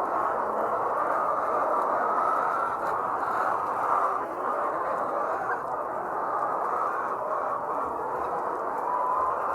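Large flock of layer hens clucking and calling all at once in a steady, dense din.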